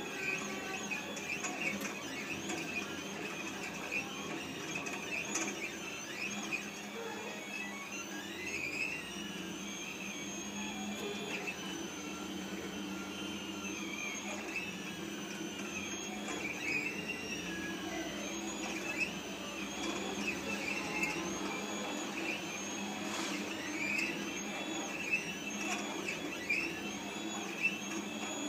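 The motors of an automatic sugar painting machine drive the syrup-dispensing head across the plate, making a whine that keeps sliding up and down in pitch as the head speeds up, slows and turns. A steady low hum runs beneath it.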